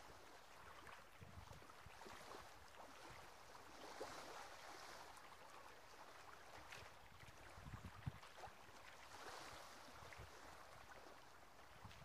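Faint small sea waves washing onto a sandy, stony shore, swelling about every four to five seconds, with a few low wind bumps on the microphone.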